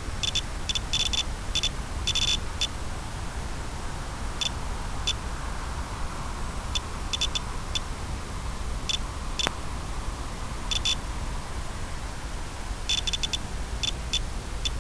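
Steady static hiss with a low rumble, broken by irregular clusters of short, high-pitched electronic ticks.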